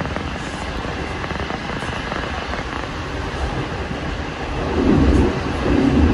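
Passenger train running at speed, heard from inside the carriage: a steady rumble of wheels on track that grows louder near the end.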